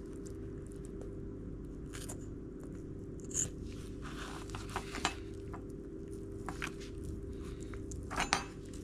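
Scissors cutting through a jack mackerel's belly wall: a few soft snips and crunching clicks, spread irregularly, over a steady low hum.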